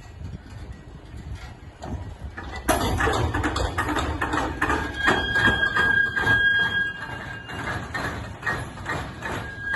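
Railway wagons moving through a shunting yard: a low rumble with repeated knocks and clanks that jumps sharply louder a little under three seconds in, then from about halfway a high, steady squeal of steel wheels on rail.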